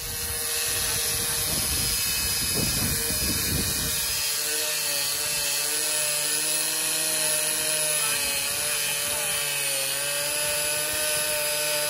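Angle grinder running steadily as its disc cuts into the base of a large plastic plant pot, its pitch wavering a little in the second half.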